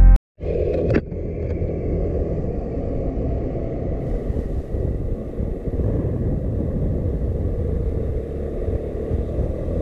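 Onboard sound of a maxi-scooter being ridden along a road: a steady engine and road rumble, louder for the first second.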